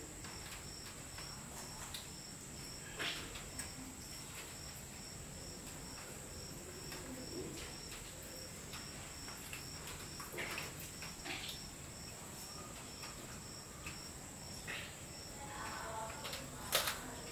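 Night insects, crickets, keep up a steady high trill, with a pulsed chirp repeating about twice a second. A few light clicks and taps come through now and then, with a sharper one near the end.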